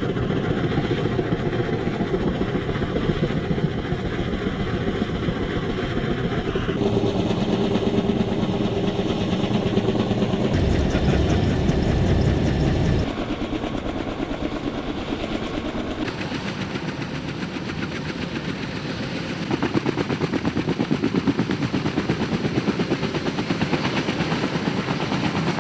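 Kaman K-MAX helicopter with intermeshing twin rotors, running with a fast, even thudding of the rotor blades over engine noise. Several clips are cut together, so the sound changes abruptly a few times and is quieter in the middle stretch.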